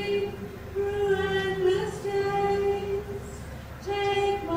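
A woman singing slow, long held notes, each sustained for about a second or more with short breaks between.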